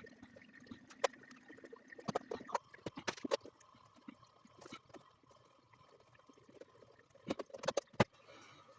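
Scattered knocks and clanks of hands and tools working on an old tank water heater. The sharpest come in a cluster about seven to eight seconds in, over a faint steady hum.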